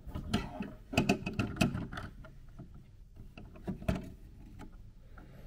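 LEGO plastic parts clicking, knocking and scraping as a small LEGO car is squeezed into the lower deck of a LEGO car transporter trailer, a tight fit. There is a cluster of clicks about a second in and a sharper knock near four seconds.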